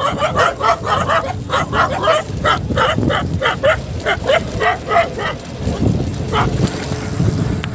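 A pack of dogs barking in quick succession, about three barks a second, as they chase a moving bicycle. The barking thins out and stops about six seconds in. Underneath is a low rumble of tyres on the road and wind on the microphone.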